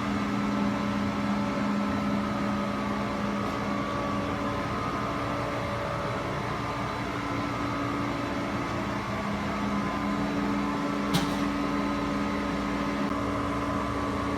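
Steady mechanical hum of running machinery, with a few held tones, and a single sharp click about eleven seconds in.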